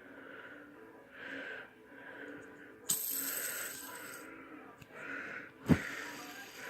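Fidget spinner being handled: about three seconds in a high, ringing whir starts suddenly and dies away over about a second and a half, and near the end there is one sharp knock.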